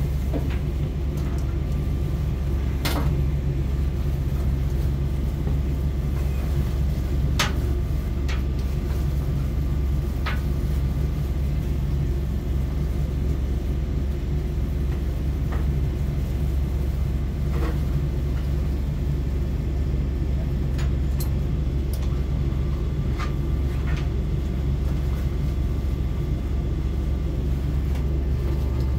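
Steady low rumble with scattered short clicks and knocks as fire-fighting gear is handled.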